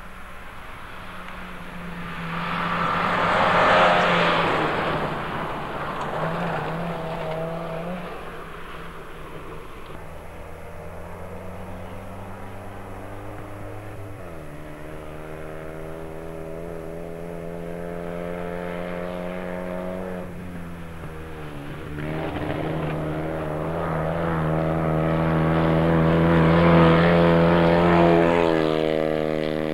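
Rally car engines at full throttle on a dirt special stage: one car passes loudly a few seconds in. Another then approaches, revving up and dropping in pitch at gear changes roughly midway and again a few seconds later, and is loudest as it passes close near the end.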